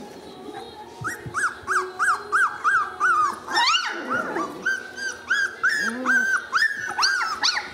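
Three-week-old Lagotto Romagnolo puppies whimpering in a run of short, high squeals, about three a second, with a louder yelp about three and a half seconds in.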